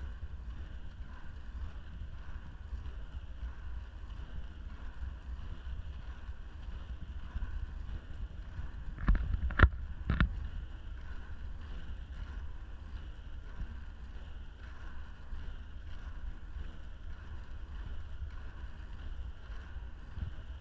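Inline skate wheels rolling on asphalt at speed, a steady rumble with wind buffeting the microphone. About nine seconds in, three sharp knocks come about half a second apart.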